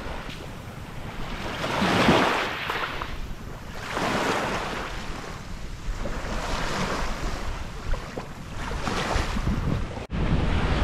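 Small waves lapping and washing up onto a sandy shore, one wash swelling in every two to three seconds, with some wind on the microphone. Near the end the sound cuts suddenly to a louder, steadier low rumble of wind on the microphone.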